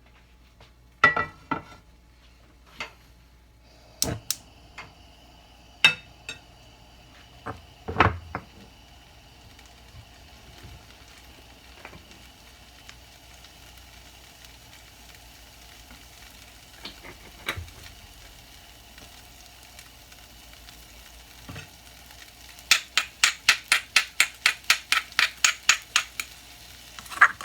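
Cookware and utensils knocking and clinking in the kitchen, scattered single knocks, then a quick even run of sharp taps at about four a second near the end.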